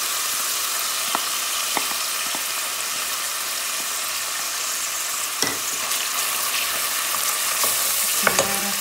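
Ginger, garlic and chilli frying in oil and a little water in a steel pot: a steady, even sizzle as tomato paste is scraped in from a bowl and stirred with a wooden spoon, with a few light knocks of the spoon against the bowl and pot.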